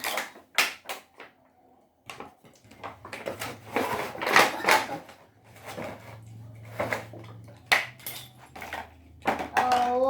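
Hard plastic Beyblade parts clattering and knocking together, an irregular run of sharp clicks and rattles.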